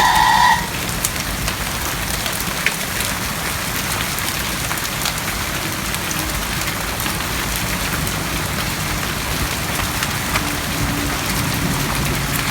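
Heavy rain mixed with hail: a steady hiss of rain with scattered sharp ticks of hailstones striking. A loud steady electronic tone with overtones cuts off about half a second in.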